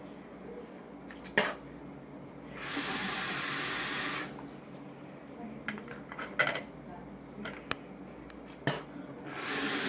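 Bathroom sink tap running into the basin during handwashing, in two stretches of about a second and a half each: one a few seconds in and one near the end. A few sharp clicks and knocks come in between.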